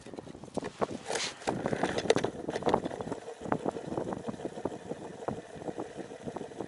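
Clicking and rustling of gloved hands working the plastic line spool of an ice-fishing tip-up, with small irregular knocks. A faint steady hum comes in about halfway through.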